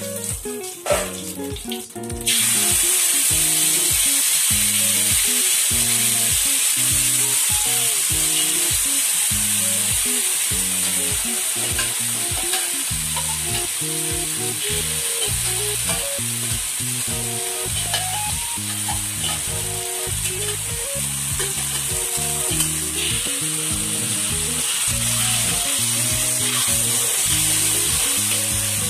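Tomato-sauce gravy from canned sardines frying in hot oil in a wok. It bursts into a loud, steady sizzle about two seconds in and keeps sizzling as a spatula stirs it.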